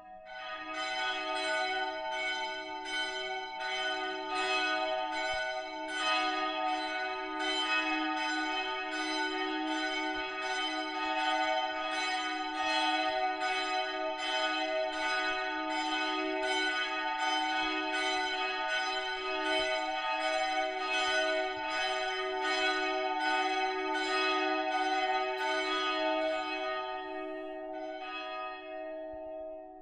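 Church bells ringing a steady peal: several bells struck in regular succession, their tones hanging on and overlapping. Near the end the strikes stop and the lingering hum of the bells dies away.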